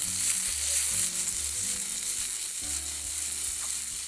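Potatoes frying in a pan on a gas camping stove, a steady sizzling hiss.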